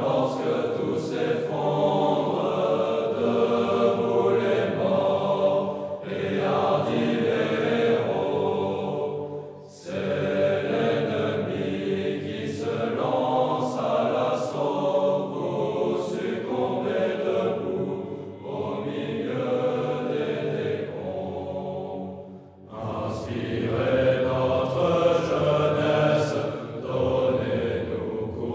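A choir singing a French military promotion song in long sung phrases, with short breaks for breath about nine and twenty-two seconds in.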